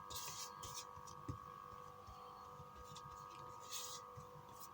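Faint soft rustling as PVA glue is brushed onto sheets of paper, in a couple of short strokes over a steady low hum.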